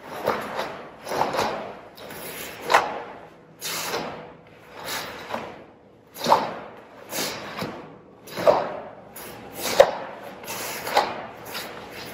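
Taekwondo uniform (dobok) sleeves and trousers swishing and snapping with each block, punch and strike of a form, with bare feet stepping on the floor. About a dozen sharp snaps, roughly a second apart.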